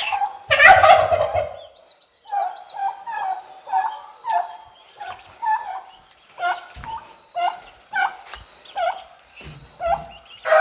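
Turkeys calling in a poultry pen: a loud call about half a second in, then a string of short calls repeating about twice a second, with a few faint high chick peeps around two seconds in.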